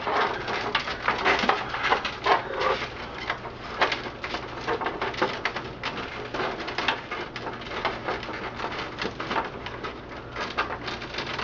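Cables and plastic connectors being pulled and handled inside a desktop PC case: a dense run of small clicks, taps and rustles over a faint steady low hum.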